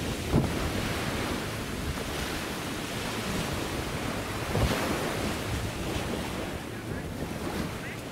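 Wind gusting over the microphone in a low, uneven rumble, over a steady wash of small waves breaking on the beach.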